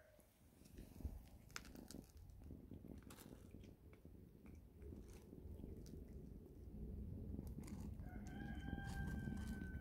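A cat crunching dry kibble, with irregular sharp clicks over a low rumble. A rooster crows near the end, one long, steady call.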